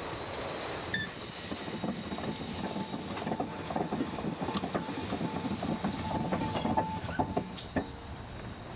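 Two-cylinder steam-driven anchor windlass running: steady hissing of escaping steam with irregular metallic knocks and clanks from the machinery, and a thin steady whine through the middle.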